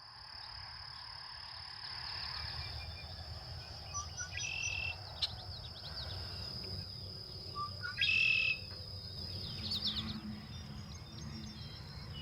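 Male red-winged blackbirds singing their territorial song: a short note or two and then a buzzy trill, repeated, the loudest trill about eight seconds in. A steady high-pitched whine and a low rumble lie under the song.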